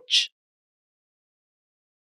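Silence, with nothing at all to hear, after the last sound of a spoken word in the first moment.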